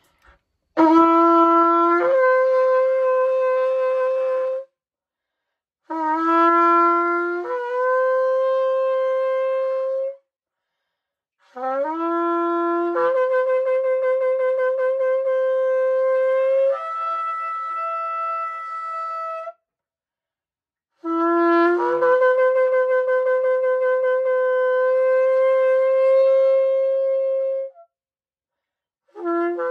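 A long spiralled shofar blown in four long blasts, each starting on a short low note that jumps up to a higher held note, with a fifth blast beginning near the end. The blasts are sounded as a victory shout of thanks.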